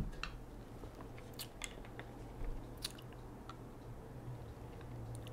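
A soft knock, then faint scattered clicks and small mouth sounds as a tobacco pipe is handled and raised to be smoked, over a low steady hum.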